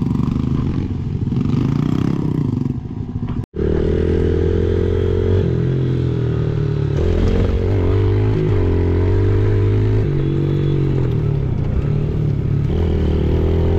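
Yamaha TT-R110's small air-cooled single-cylinder four-stroke engine running under throttle on the move, its pitch stepping up and down with throttle and gear changes. The sound breaks off for an instant about three and a half seconds in, then comes back louder and steadier.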